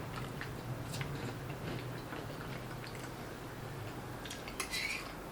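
Eating utensils clicking and tapping lightly against dishes, with a louder clatter about four and a half seconds in.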